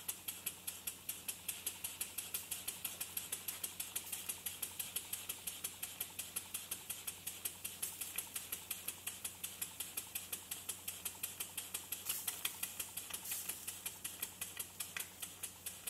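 Small model horizontal steam engine idling unloaded on the last of its boiler pressure: a quick, even run of light clicking exhaust beats, about five a second.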